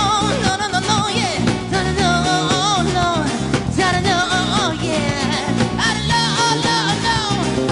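Live band playing an upbeat pop-rock song: a bending melodic lead line over guitar and a steady beat.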